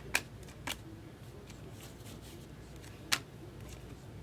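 Sports trading cards handled and flipped through by hand: a few sharp snaps of card against card, two in the first second and a louder one about three seconds in, over a faint steady room hum.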